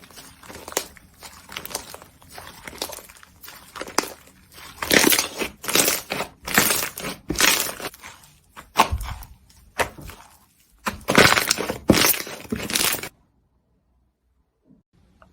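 Slime being squeezed and pressed by hand, giving a run of crackling, popping clicks and squelching bursts that cuts off suddenly about 13 seconds in.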